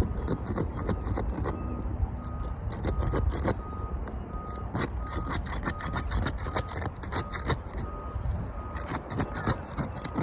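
Roof snake working under old asphalt shingles: a long run of sharp irregular scraping clicks and crackles as the brittle shingles are pried up and tear, over a steady low rumble, with a short high beep repeating every half second or so.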